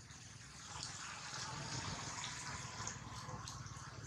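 Steady hiss of running, trickling water, getting a little louder about a second in.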